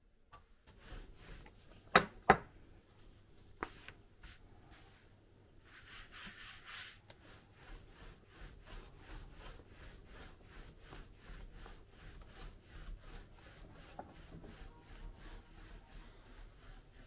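Pide dough being worked by hand on the work surface: a couple of sharp knocks about two seconds in, a brief rustle, then steady rhythmic rubbing at about four strokes a second as the portions are shaped.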